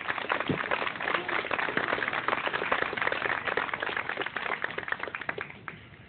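A crowd of guests applauding, a dense patter of many hands clapping that fades away shortly before the end.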